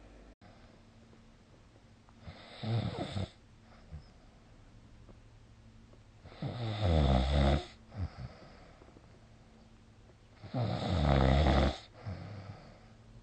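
A sleeping person snoring: three rough snores about four seconds apart, the second and third louder than the first, each followed by a short, fainter breath sound.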